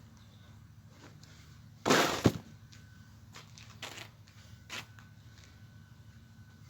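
A brief noisy clatter about two seconds in that ends in a sharp knock, followed by two fainter knocks.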